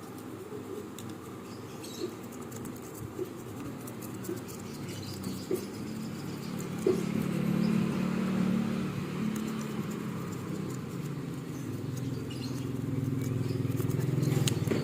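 Light clicks of small plastic clock-movement parts being handled, over a steady engine hum that grows louder from about halfway through, as of a motor vehicle going by.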